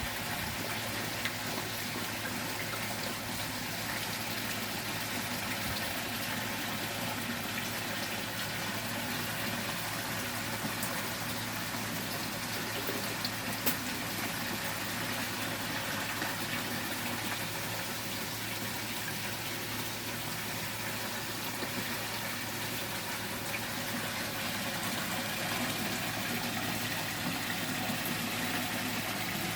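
Water running and splashing steadily in a garden koi pond, with a low steady hum underneath.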